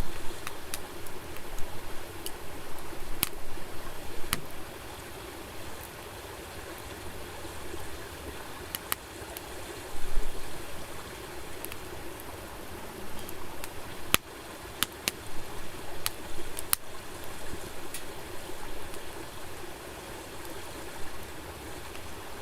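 Campfire burning, with a steady hiss and sharp, irregular crackles and pops from the burning wood, a few of them close together around the middle.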